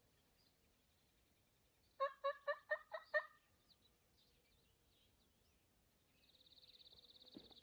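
A turkey gobbles once about two seconds in: a fast, rattling run of about six notes lasting just over a second. Faint high bird chirps follow, and a high buzzy trill starts near the end.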